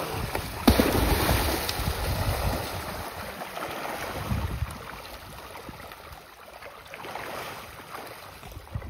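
Large fish splashing and thrashing at the water's surface as they feed, with a sharp loud splash about a second in and another loud spell around four seconds in; the splashing eases off in the second half.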